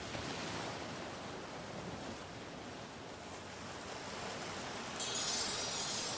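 Sea surf rushing steadily. About five seconds in it turns louder and brighter, like a wave washing in closer.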